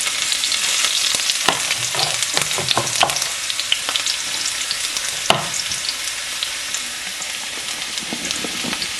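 Chopped onion sizzling in hot oil in a frying pan, a steady hiss, with a few sharp knocks and scrapes of a stirring utensil against the pan, the sharpest a little past halfway.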